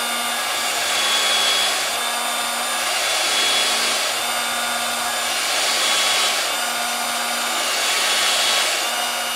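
Electric drill running continuously while boring holes into a wooden model boat hull. It is a steady motor hum and whine that swells and eases every couple of seconds as the bit bites into the wood.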